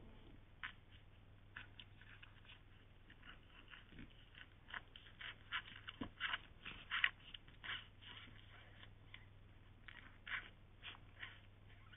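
Cocker spaniel puppies suckling, making faint irregular wet sucking and smacking clicks, busiest in the middle, over a steady low electrical hum from the camera.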